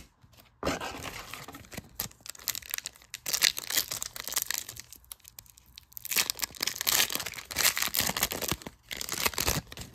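The foil wrapper of a Donruss Optic trading-card pack being crinkled and torn open by hand. It makes a dense run of crackling rustle, louder around the middle and again toward the end.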